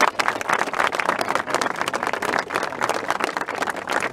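Crowd applauding: many people clapping at once in a dense, irregular patter.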